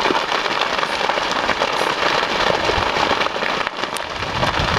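Steady, dense crackling and popping of a large vegetation fire burning through dry grass and cedar trees.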